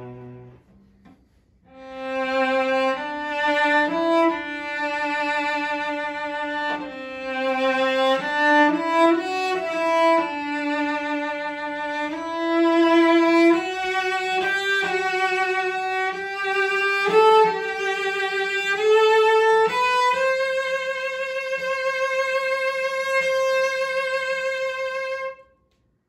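A 1990 David Palm cello, a Stradivari-model instrument, bowed solo. After a short pause it plays a slow melody high in its range with vibrato, one note at a time, ending on a long held note that stops just before the end.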